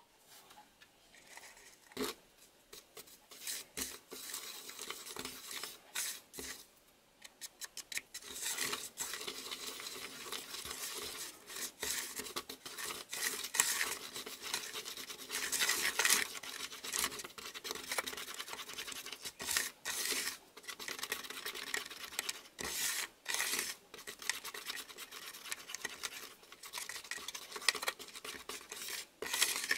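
A flat wooden stick stirring and scraping round a plastic candy-kit tray, with scattered taps, mixing powder and water into a thick gel. A few taps at first, then steady scraping from about a quarter of the way in.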